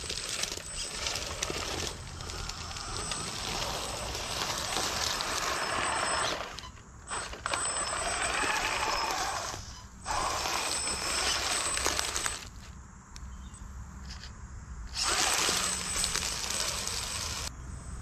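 1/8-scale RC rock crawler driven by a brushless motor, its motor and gear drivetrain whining under throttle while its tyres crash through dry leaves and brush. It goes in four bursts of throttle with short pauses between, the longest pause about two-thirds of the way through.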